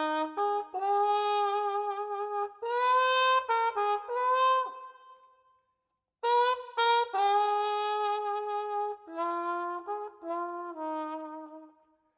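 Intro music: a single brass-sounding melody line of held notes, played in two phrases with a break of about a second in the middle.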